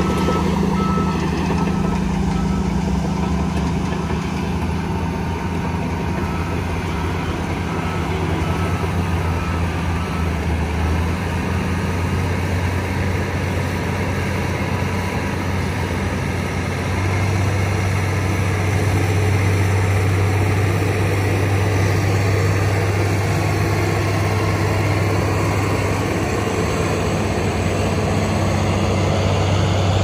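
Shantui crawler bulldozer's diesel engine running under load as it pushes a pile of soil. A reversing alarm beeps steadily in the background for the first ten seconds or so. About 17 seconds in, the engine note rises and gets louder.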